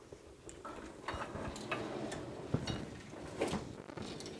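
Handling of a bicycle handlebar and a tangle of electrical cables: scattered light clicks and rustling, with a few sharper ticks.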